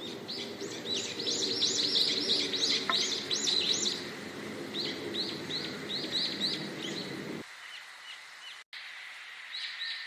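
A songbird singing a fast series of repeated high chirps, each rising and falling, about four a second. It sings two runs, the first louder. A steady low rushing noise underneath cuts off abruptly about seven seconds in.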